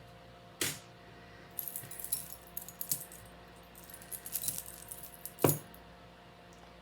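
Costume jewelry clinking and jingling as it is picked through by hand, with metal chain and beads clicking together. There is a sharp click about half a second in, a run of small clinks over the next few seconds, and another sharp click near the end.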